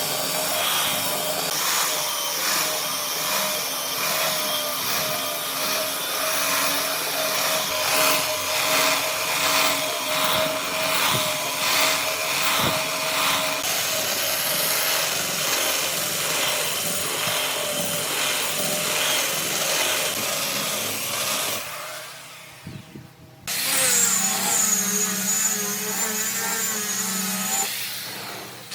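Electric power tool running against wood, a steady whine over a rough grinding noise. It dies away about 22 seconds in, and after a short gap a tool with a higher, wavering whine takes over until it fades near the end.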